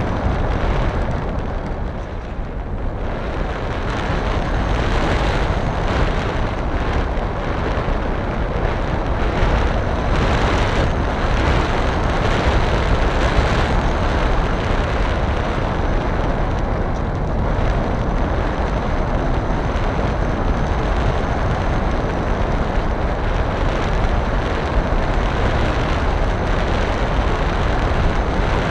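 Wind rushing and buffeting over the onboard camera microphone of a model aircraft in flight: a loud, steady rush of noise heaviest in the low end, with a faint steady high whine running under it.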